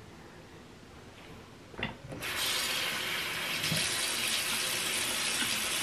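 A short knock, then about two seconds in a bathroom sink tap is turned on and water runs steadily from the faucet.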